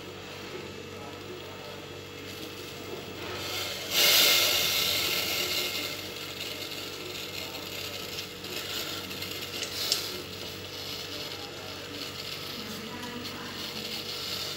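Knife tip scraping and clicking among broken frozen slate pencil pieces in a stainless steel bowl. The loudest is a sudden scrape about four seconds in that fades over about two seconds, and there is a sharp click near ten seconds, over a steady low hum.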